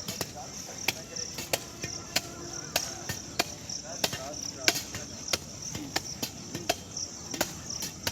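A hand tool striking the court's packed soil in a steady rhythm, about three strokes every two seconds, over continuous chirping of crickets.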